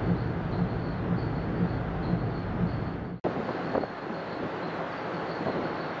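Steady mechanical rumble, like machinery running, with a low pulse about twice a second. The sound cuts out for an instant about three seconds in, and a similar rumble without the regular pulse follows.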